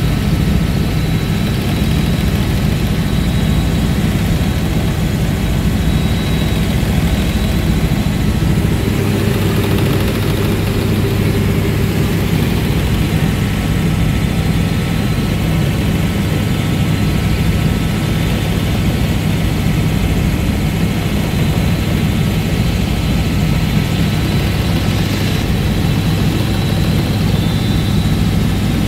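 Helicopter in cruise flight heard from inside the cabin: the engine and rotor make a loud, steady, unchanging noise.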